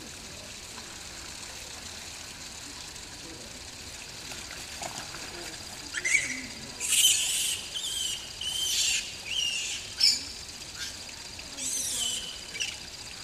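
A bird giving a run of loud, high, squawking calls with bending pitch, starting about six seconds in and going on for about six seconds, over a faint steady hiss of outdoor background.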